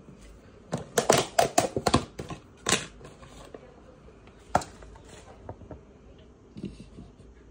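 Clicks and knocks of food and dishes being handled on a kitchen counter as cheese and sliced cabana are set out on a platter: a quick run of light clicks about a second in, then a few single knocks.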